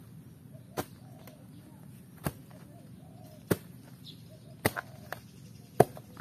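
A spade driven into dry soil and leaf litter, striking about once every second or so in sharp chops, the loudest strike near the end.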